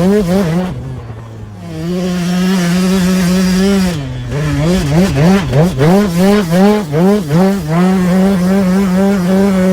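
KTM 200 SX single-cylinder two-stroke dirt-bike engine revving hard, its pitch swinging quickly up and down as the throttle is worked through whoops. About a second in it drops briefly to low revs, then holds a steady high note for a couple of seconds. After another dip it goes back to rapid rev cycling.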